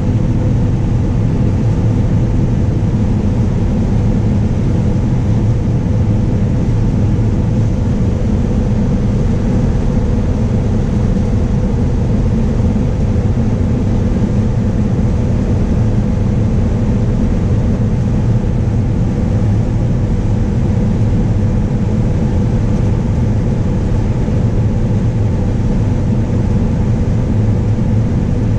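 John Deere combine harvester running steadily while cutting standing wheat: a loud, even machine drone with a constant whine held above it.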